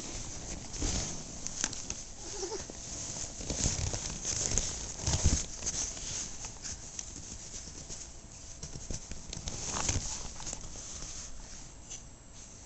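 Boston terrier puppy moving about on a couch close to the microphone: irregular rustling and soft thumps, the loudest about five and ten seconds in, with a brief faint whimper a couple of seconds in.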